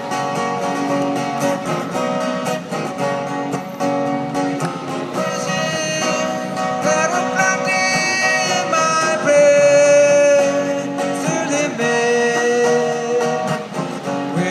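A voice singing with acoustic guitar accompaniment, with long held notes over strummed chords.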